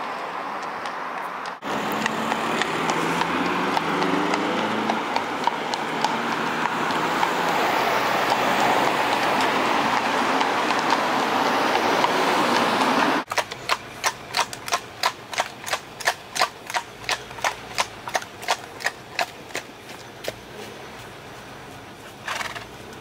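An Irish cob's hooves clip-clopping on a tarmac road over the noise of a passing vehicle. After a cut, a run of crisp, evenly spaced hoof beats follows at about two and a half a second, then fades near the end.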